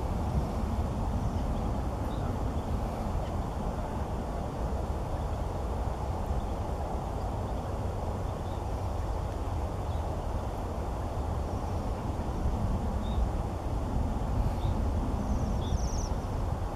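Steady low outdoor rumble of wind and distant traffic, with faint short high bird chirps now and then and a few together near the end.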